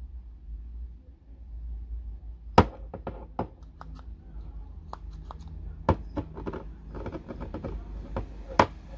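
Clicks and knocks of a glass oil-sprayer bottle with a metal pump cap being handled. The sharpest knocks come about two and a half seconds in, near six seconds and near the end, with a quick run of small clicks in between, over a low steady rumble.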